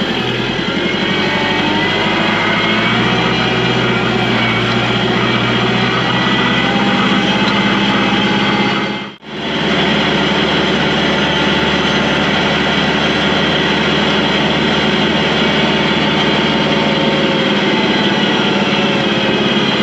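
A vehicle engine running steadily while being driven, with a brief sudden dropout about nine seconds in.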